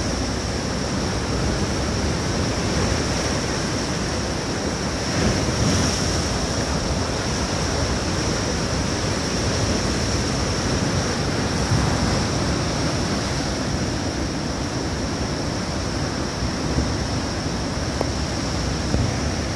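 Rough sea breaking in heavy surf: a steady wash of breaking waves with a few brief louder surges.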